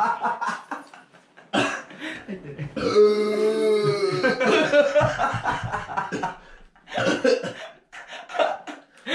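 A man burping over and over, the burps mixed with gagging, from fizzing burp powder foaming in his mouth. One long drawn-out burp comes about three seconds in.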